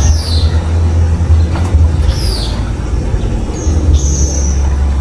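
Water running from a garden hose into a plastic bottle, over a steady low rumble. A bird calls several times with short, high, falling chirps.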